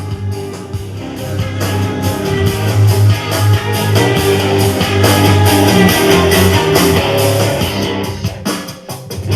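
A guitar-based rock song playing through a JBL Flip 5 portable Bluetooth speaker as a sound test, growing louder about two seconds in.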